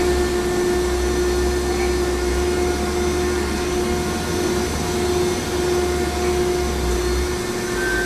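Baler machinery running with a steady hum and a constant whine.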